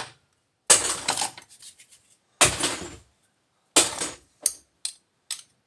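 Small scrap metal pieces clattering and clinking as they are picked through by hand and tossed into sorting buckets: three louder clatters about a second and a half apart, then quicker, lighter clinks near the end.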